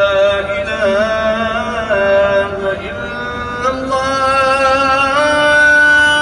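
Chanting voice holding long notes that waver and bend in ornaments, shifting to new pitches a few times.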